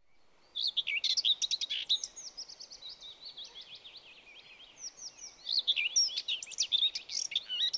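A songbird singing a long run of quick, varied high chirps and warbles, fainter for a couple of seconds in the middle and louder again near the end.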